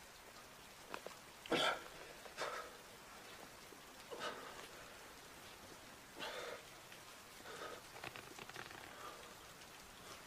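A hurt man breathing in short, ragged gasps and grunts, several a second or two apart, faint.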